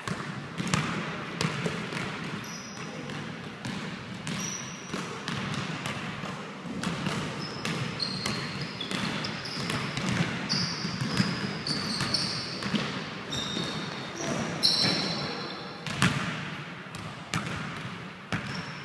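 A basketball dribbled on a hardwood gym floor, bouncing in an irregular rhythm, with short high squeaks of basketball shoes on the floor during the footwork, mostly in the middle stretch.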